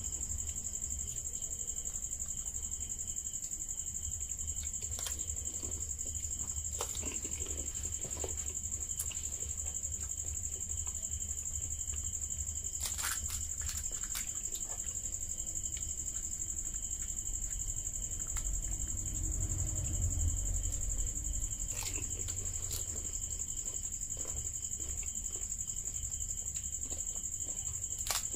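Crisp puri shells being cracked open with the fingers and crunched while eating, heard as scattered short sharp cracks over a steady high-pitched whine and a low rumble.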